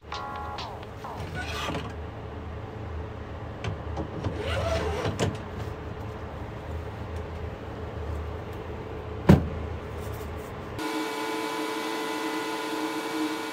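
Handling noise from fitting the build plate into a Creality HALOT-X1 resin 3D printer: clicks and knocks over a low rumble, with one sharp knock about nine seconds in. Near the end, a steady multi-tone motor whine starts as the printer raises its resin vat to begin printing.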